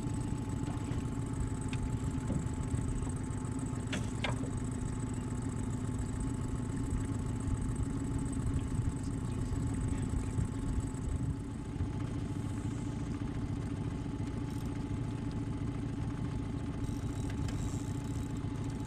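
A motor vehicle's engine running steadily, with a couple of sharp clicks or knocks about four seconds in.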